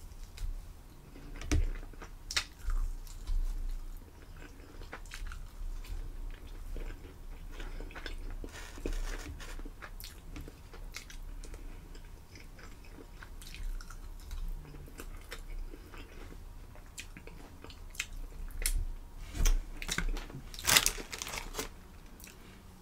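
Close-miked biting and chewing of sauced bone-in chicken wings, wet chewing broken by many small crunches and clicks. A louder burst of noise comes near the end.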